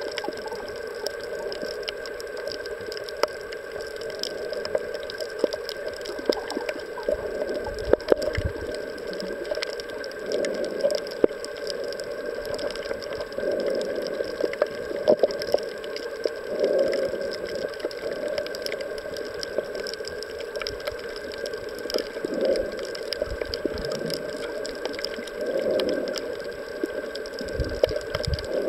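Underwater reef ambience picked up by a snorkeler's camera: a steady muffled water hiss with a faint steady hum, scattered through with sharp clicks and crackles. Slow swells of muffled swooshing come every few seconds.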